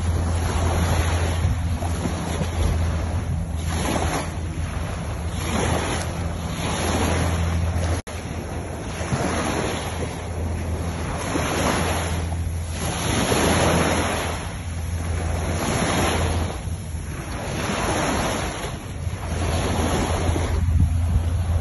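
Sea waves washing onto a sandy beach, surging and falling back every second or two, over a steady low hum. The sound drops out for an instant about eight seconds in.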